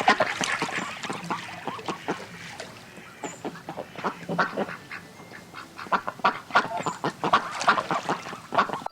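A flock of waterfowl calling, with many short quacks and honks overlapping. The calls are busiest just after the start and again a little past the middle.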